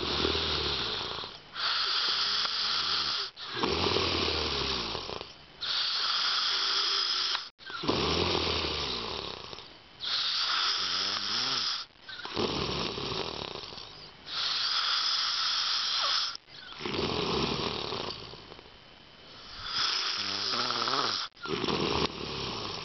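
A man snoring loudly in his sleep, one snore on every breath, about one every two seconds, several with a low rattle.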